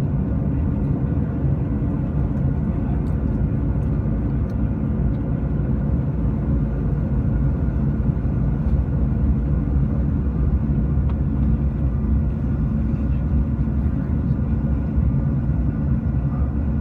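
Steady airliner cabin noise in flight: the low, even rumble of jet engines and rushing air, with faint steady tones above it.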